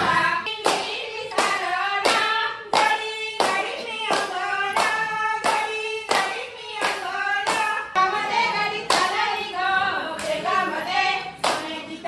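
A Maharashtrian folk song sung to steady rhythmic hand-clapping, about three claps every two seconds.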